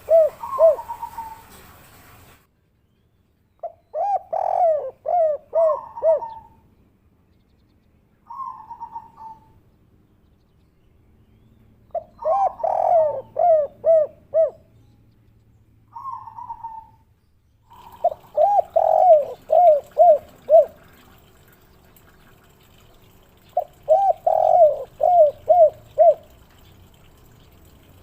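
Spotted dove (derkuku) singing its 'kuk 3' song, a phrase of several quick coos, repeated every few seconds with short pauses between phrases.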